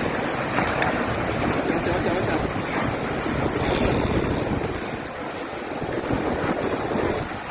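Strong hurricane wind and rushing water, a dense roar that swells and eases in gusts, buffeting the microphone.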